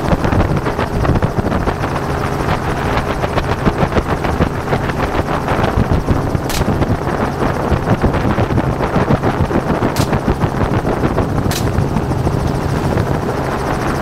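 Helicopter in flight, its rotor chopping steadily over the engine, heard from inside the doors-off cabin. A few brief sharp clicks stand out, one about halfway through and two more near the end.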